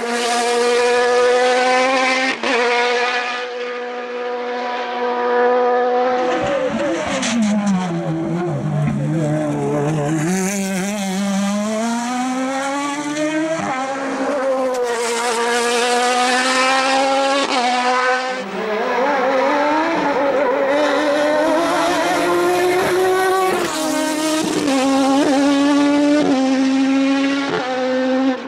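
Radical SR4 sports prototype's engine at racing revs, climbing in pitch through quick upshifts. About a third of the way in the pitch falls away as it brakes and downshifts for a corner, then rises again as it accelerates out, with more rapid shifts and lifts near the end.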